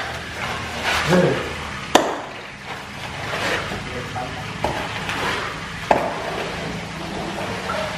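Metal shovel scraping and pushing wet flood mud and debris across the floor in repeated strokes, with sharp knocks as the blade strikes the floor, the clearest about two seconds in and near six seconds.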